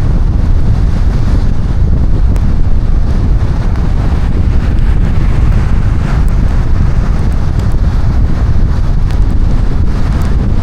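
Heavy rainstorm noise during a drive: a loud, steady low rumble, with wind buffeting the microphone.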